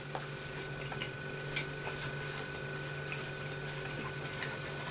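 A person chewing a mouthful of chicken, rice and mushy peas: faint wet mouth sounds with a few soft clicks, over a steady low electrical hum.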